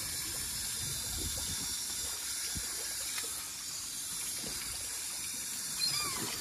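Water spraying from a garden hose spray nozzle onto a fish-cleaning table, a steady hiss. A short high chirp near the end.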